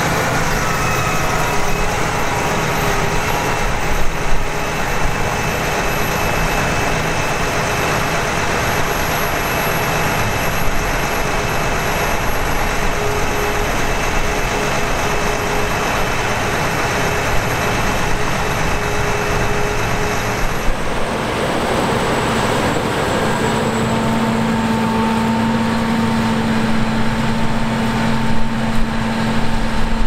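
Claas Lexion 770 TT combine harvester working in the field: its engine and threshing machinery give a steady drone while it cuts grain. About 21 s in the sound shifts, and from about 24 s a steady low hum comes to the fore.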